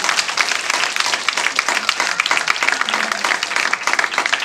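Audience applauding: dense clapping from many hands, the reaction to a card trick's reveal.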